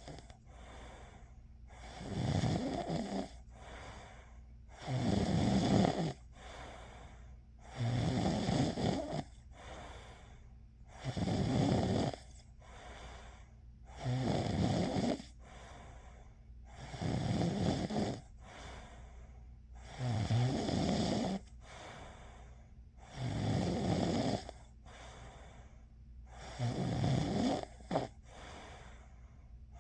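A person snoring in a slow, even rhythm: nine rough snores, each about a second long, about one every three seconds.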